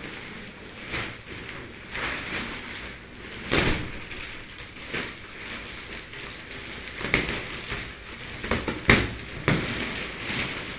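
Plastic wrapping on a rolled mattress-in-a-box crinkling and rustling as it is handled and pulled off, in irregular swishes with a few sharper crackles.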